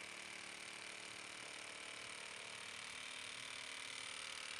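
Hilti SR 6-A22 cordless brushless reciprocating saw running steadily, its blade cutting through a stack of laminate flooring boards.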